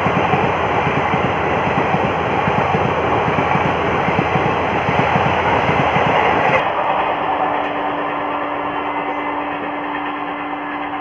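A passenger train's coaches passing at speed: a loud, dense, steady clattering rumble of wheels on rail. About two-thirds of the way in it cuts to a quieter, steady rush with a faint low steady tone.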